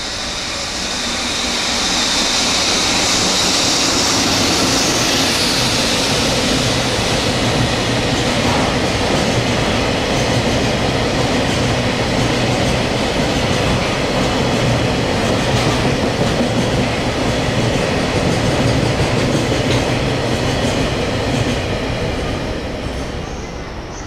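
Freight train of green oil tank wagons running through the station behind an electric locomotive. A high hiss in the first few seconds as the locomotive comes by, then the steady run of the wagons' wheels on the rails, fading near the end as the last wagons pass.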